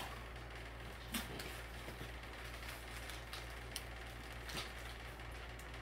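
Faint rustling and scraping of paper book packaging being slit open with a box cutter, with a few soft clicks about a second in and past the middle, over a steady low hum.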